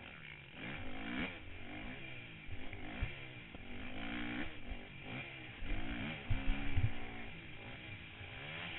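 Motocross bike engine revving, its pitch climbing and dropping again and again as the throttle is worked through the gears. A few low thumps come about two-thirds of the way through.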